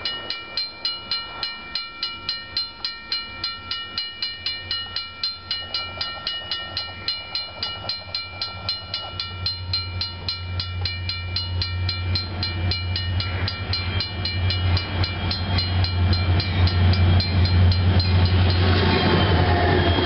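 A railroad crossing bell ringing rapidly, about three to four strokes a second, while a freight train led by three NREX diesel locomotives approaches. The locomotives' low engine rumble grows steadily louder and, near the end, comes with wheel noise as they pass close by.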